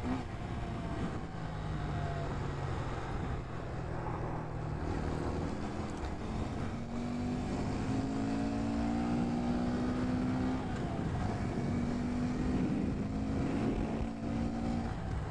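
2018 Honda Grom's single-cylinder engine running under way, its pitch holding steady at first, then slowly climbing with throttle, breaking off and picking up again, over a steady rushing noise.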